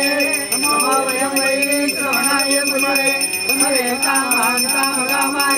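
A puja hand bell rung rapidly and without a break during an aarti offering, over melodic devotional music.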